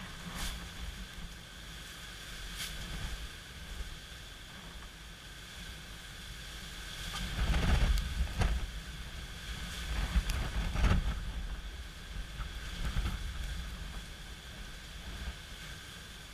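Strong, gusty wind ahead of an approaching hurricane buffeting the microphone over a steady hiss of rain, with the two strongest gusts rumbling about halfway through. A few sharp ticks sound among the gusts.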